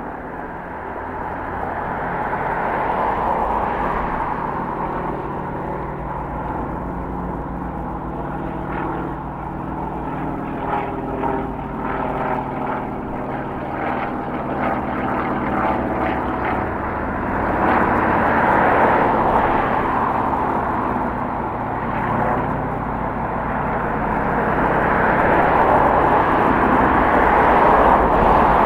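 Propeller aerobatic plane's nine-cylinder M-14P radial engine droning through aerobatic figures. Its pitch and loudness rise and fall as the plane manoeuvres, swelling louder in the second half.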